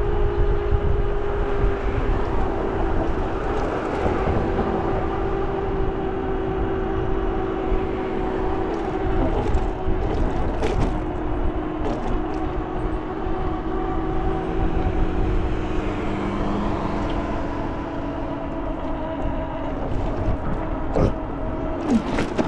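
Electric bike motor whining steadily as the bike rides along, its pitch sinking slowly, over a low rumble of wind on the microphone. A few light clicks come through.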